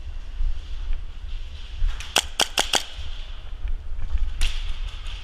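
Airsoft gun shots: four quick sharp shots about two seconds in, then a single shot a couple of seconds later.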